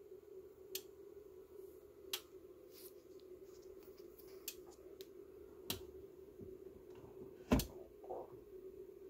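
Ryobi P117 battery charger clicking while charging an 18V P102 lithium-ion battery: about half a dozen sharp clicks at uneven spacing over a steady hum, a clicking the owner thinks is not normal. Near the end there is one louder knock as a hand takes hold of the battery on the charger.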